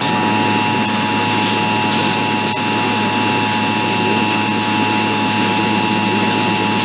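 Emergency Alert System two-tone attention signal on a radio broadcast, heard under a loud, steady hiss of reception static.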